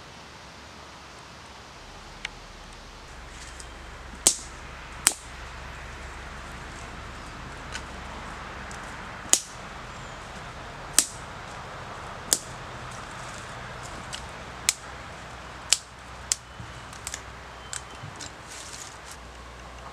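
Dry kindling sticks snapping and clicking as they are broken and laid. About a dozen sharp, irregular cracks sound over a steady outdoor hiss.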